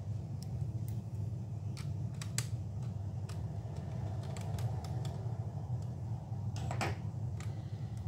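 Scattered light clicks and taps of a laptop's plastic case and parts being handled and fitted back together, with a short clatter near the end, over a steady low hum.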